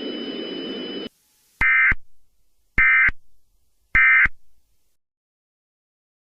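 Emergency Alert System end-of-message data bursts: three short, identical warbling digital tone bursts about a second apart, the signal that marks the end of the alert. A steady hiss runs for about the first second before them.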